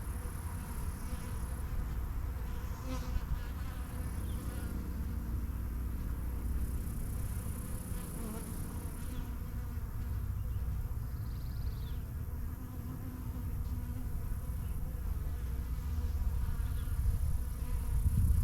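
Honeybees buzzing steadily around an open hive.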